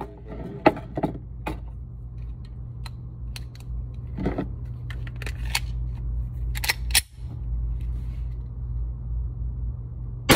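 Sharp metallic clicks and clacks of a pistol being handled and readied, over a steady low hum, then a single gunshot right at the end.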